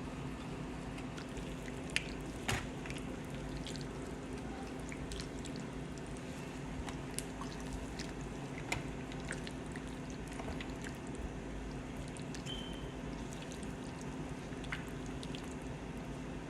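Shrimp being dropped into a pan of broth: small splashes and scattered clicks, several sharper ones early on and near the middle, over a steady low hum.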